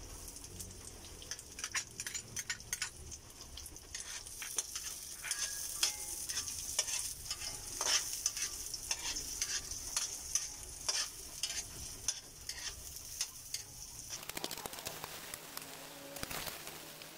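Chopped onions and garlic sizzling in hot oil in an aluminium wok, with a metal spatula clicking and scraping against the pan as they are stirred. The sizzle dies down near the end.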